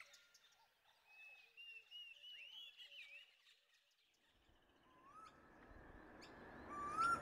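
Faint birdsong ambience: scattered short chirps, then after a brief lull a rising outdoor hiss with short upward-sliding whistled bird calls near the end.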